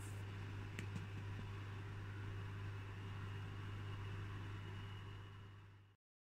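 Steady low hum of room tone with a light hiss and a faint thin high tone. There is one small click a little under a second in, and the hum fades out to silence near the end.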